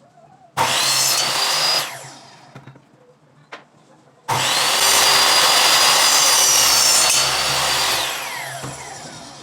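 Electric power saw cutting a wooden support board to length, in two runs: a short one of about a second, then a longer cut of almost four seconds. The motor's whine rises as it spins up and falls away as it winds down near the end.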